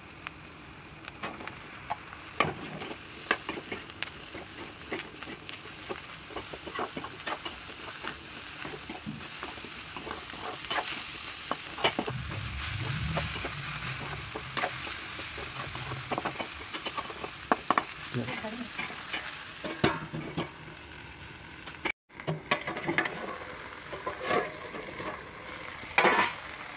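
A metal slotted spoon scraping and clinking against a steel kadai while onions and sliced okra fry in hot oil, with a steady sizzle. The sizzle grows a little louder about ten seconds in, and the sound breaks off for a moment later on.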